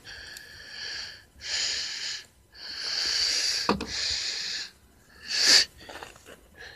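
Heavy breathing close to the microphone from the person filming, about five loud breaths in a row with short pauses between them, and a single short knock about halfway through.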